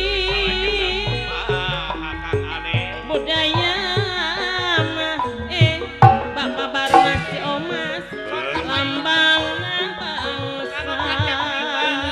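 Sundanese gamelan accompaniment for wayang golek: a sinden sings a wide-vibrato melody over struck metallophones and regular hand-drum strokes.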